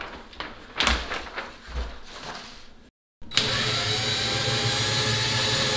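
A few knocks and handling thumps, then, after a brief cut, a DeWalt cordless drill runs steadily under load, boring a hole into the wall through the microwave's mounting plate.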